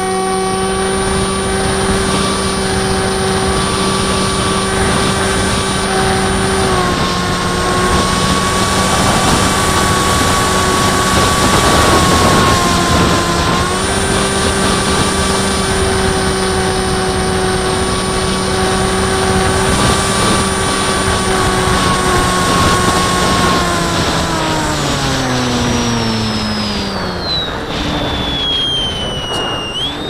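Radio-controlled float plane's motor and propeller at high throttle, heard from a camera on the wing: a steady drone with a high whine over a rush of air. The pitch drops a little about seven seconds in, comes back up around fourteen seconds, then falls away over the last several seconds as the throttle comes back.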